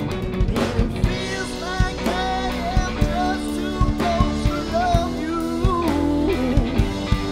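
Live rock band playing a dance song, with a strummed Stratocaster-style electric guitar over a steady drum-kit beat and a sung lead vocal.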